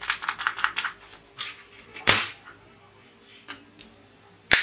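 Plastic toy revolver clicking as it is handled: a fast run of about ten light clicks in the first second, then single sharp snaps, the loudest about two seconds in and near the end.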